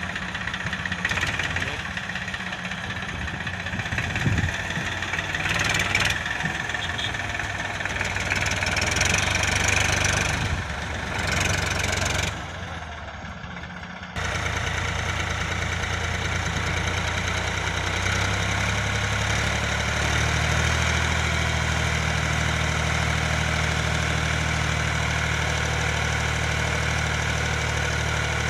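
Diesel engine of heavy machinery running under varying load. The sound changes abruptly about halfway through to a steadier, deeper engine note.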